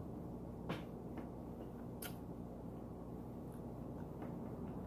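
Chicken wing being eaten by hand: a few sharp mouth clicks and smacks, the loudest a little under a second in and about two seconds in, over a steady low hum.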